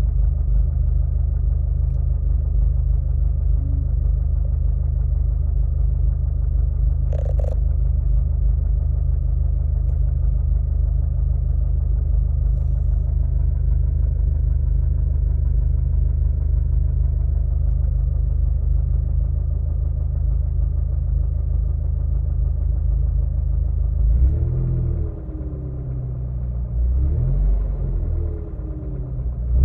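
Volkswagen Mk6 Golf GTI's 2.0-litre turbocharged four-cylinder engine idling steadily with a knocking sound. There is one brief sharp click about seven seconds in, and in the last few seconds the engine note changes and wavers in pitch.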